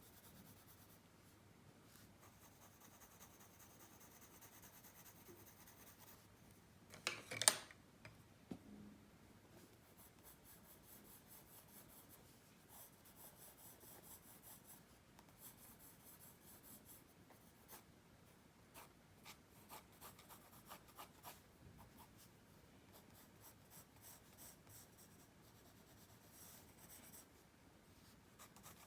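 Pencil strokes scratching faintly on paper, in short repeated runs of sketching and shading. About seven seconds in there is one louder, brief rustle or knock.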